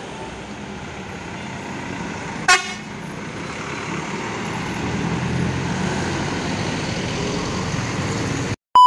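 Roadside traffic running steadily, with one short vehicle horn toot about two and a half seconds in and a vehicle passing with a rumble that swells through the middle. Near the end the sound cuts off abruptly and a steady electronic beep tone starts.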